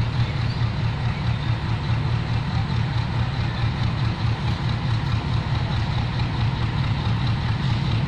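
Diesel locomotive engine running with a steady low throbbing drone as the train approaches slowly.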